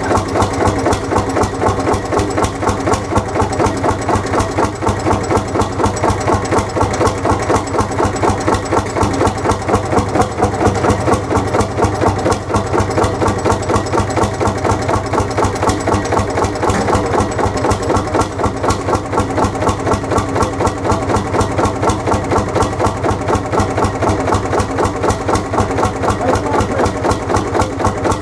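Lanz Bulldog 35 hp single-cylinder two-stroke hot-bulb engine idling with a steady, regular beat, running again after many years standing.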